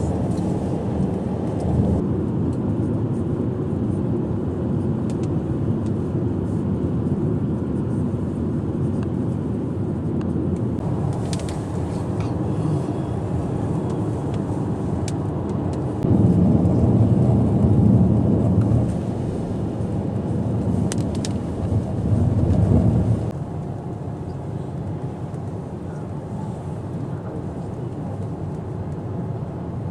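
Low, steady rumble of a car heard from inside the cabin. It swells louder twice past the middle, then settles back to a lower rumble.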